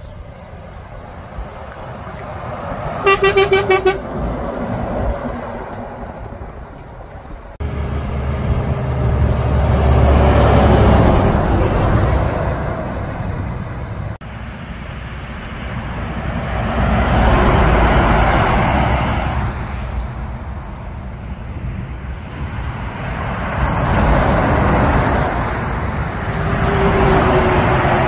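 Truck horn sounding a rapid burst of short toots about three seconds in, then heavy trucks passing close by one after another, each a long swell of engine and tyre noise that rises and fades.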